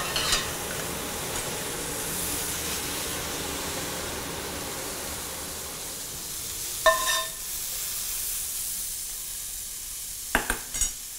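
Catfish pieces frying in a pan, a steady sizzle. About seven seconds in there is a single ringing metal clink, and near the end a few short clicks.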